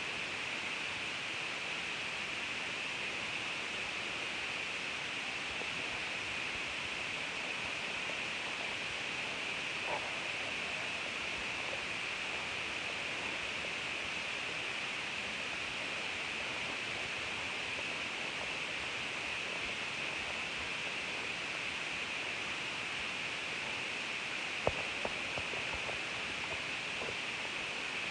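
Steady hiss of background noise, with a faint click about ten seconds in and a sharper click near the end.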